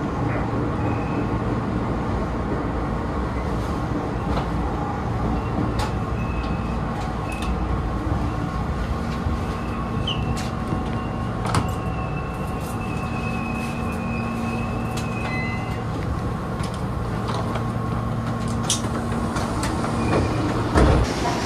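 Meitetsu electric train standing at an underground station platform: a steady hum from its equipment under a station rumble, with a few clicks and knocks and a faint high tone partway through.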